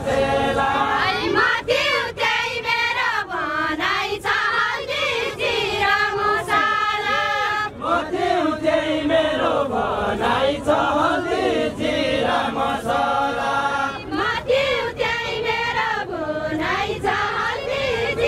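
A group of women singing a Deuda folk verse together, in long rising and falling phrases of a few seconds each with short breaks between them.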